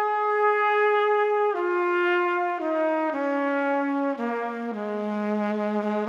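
Background music: a single melodic line of held notes, rich in overtones, stepping down in pitch note by note.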